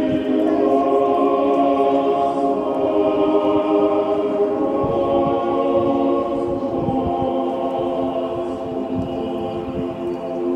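Choral music in long sustained chords, played loudly as the clock's procession of apostle figures moves; a low rumble runs underneath.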